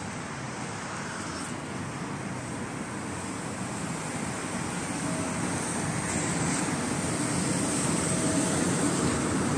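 Road traffic on a busy multi-lane street below: a steady wash of car and bus noise that slowly grows louder.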